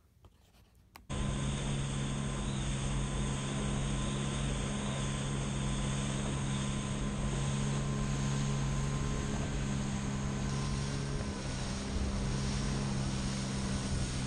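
About a second of near silence, then a small watercraft engine starts abruptly, running steadily at constant speed under a rush of wind and water noise.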